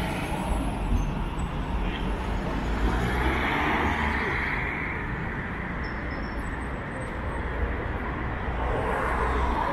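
Steady street traffic noise: a low rumble of passing cars and tyre noise, swelling for a couple of seconds about halfway through as a vehicle goes by.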